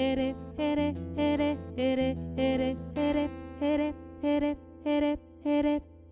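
Instrumental music: a steady run of strummed chords, about two a second, over a held bass note. The strumming stops near the end and the bass note rings on.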